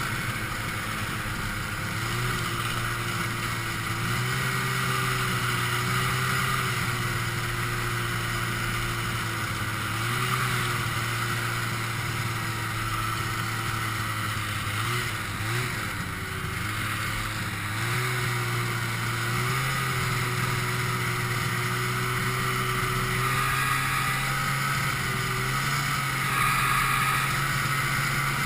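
Ski-Doo Blizzard 5500 snowmobile's 503cc two-stroke engine running at a steady cruising pitch, briefly easing off and picking back up a few times, most clearly about halfway through.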